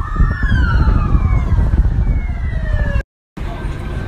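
Several police sirens wailing together, their pitches sliding up and down and overlapping, over a loud low rumble. The sound cuts off abruptly about three seconds in, and after a short gap a steadier hum follows.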